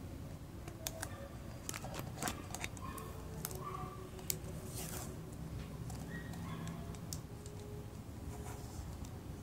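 A thin clear plastic cup and a roll of decorative tape being handled as the tape is wrapped around the cup: scattered light clicks and crinkles of the plastic.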